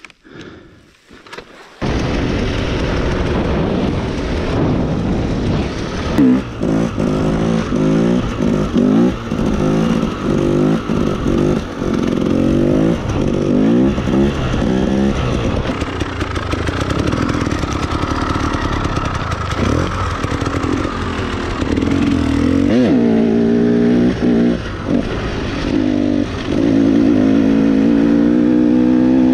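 Dirt bike engine being ridden hard, cutting in suddenly about two seconds in. The revs rise and drop again and again, about a second apart through the middle, then in a few longer pulls near the end.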